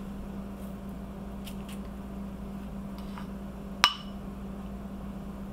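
A metal spoon clinking sharply once against a bowl about four seconds in, with a few faint taps before it, over a steady low hum.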